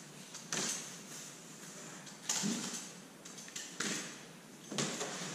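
Box cutter slicing through packing tape on a large cardboard box: several short rasps, each starting sharply and fading within about half a second.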